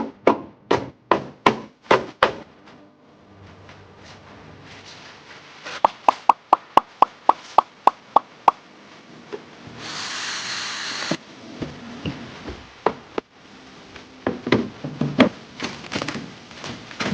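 Household containers and items being handled and set down: a string of knocks and clicks, then a quick even run of about a dozen sharp clicks. About ten seconds in comes a brief hiss, and then more knocking and clattering.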